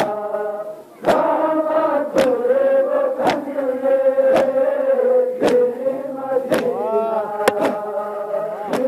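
Crowd of men chanting a mourning lament (noha) in unison while beating their chests in matam, a sharp slap about once a second keeping the beat. The chanting dips briefly just before one second in, then resumes.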